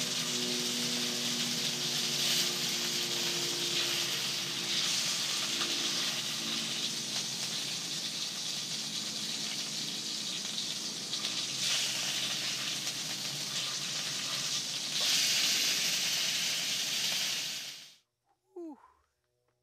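Perch pieces sizzling as they fry in a pan on a portable camp stove: a steady frying hiss that cuts off suddenly near the end.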